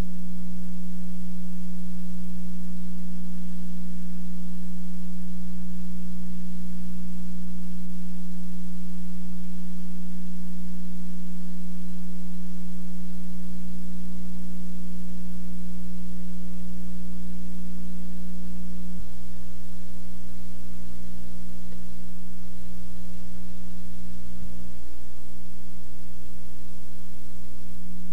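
Steady electrical hum: a loud, unchanging low buzz over a deeper drone. The buzz drops a little in level about two-thirds of the way through.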